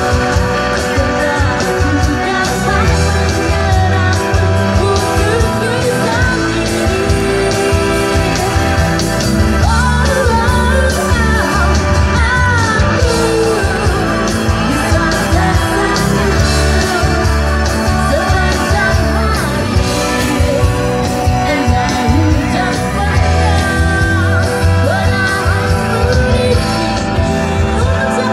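Live band playing a pop-rock song with a lead singer over bass, drums and guitar, loud and continuous.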